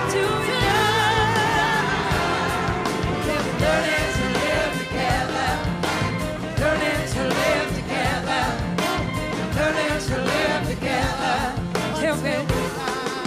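Live blues-rock band playing with singing: wavering held vocal lines with vibrato over a steady drum beat and full band accompaniment.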